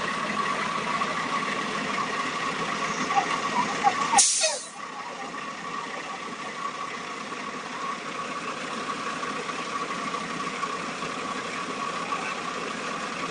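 Bus engine running steadily with a high whine. About four seconds in there is a short, sharp hiss, and faint voices are heard just before it.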